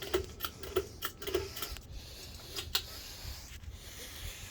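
Irregular light clicks and ticks, about two a second and clustered in the first two seconds, over a low steady rumble.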